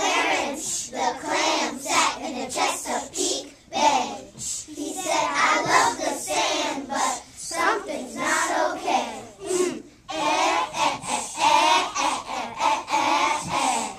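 A group of young children chanting a rap together in unison, rhythmic lines of many voices at once.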